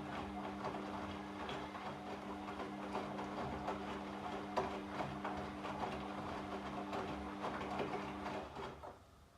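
Washing machine drum turning during a wash cycle: a steady motor hum with irregular clicks and knocks from the tumbling laundry, stopping near the end as the drum pauses.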